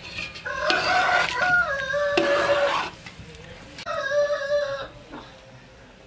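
A rooster crowing: one long crow of about two and a half seconds, then a second, shorter call about four seconds in.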